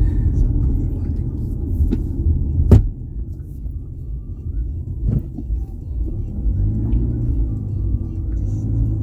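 Road noise inside a moving car's cabin: a steady low rumble, broken by a sharp knock a little under three seconds in and fainter knocks near two and five seconds.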